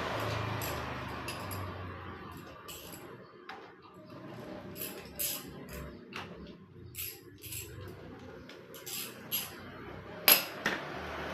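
Scattered sharp metallic clinks and clicks of tools and engine parts being handled during a motorcycle engine teardown, with one louder clank about ten seconds in.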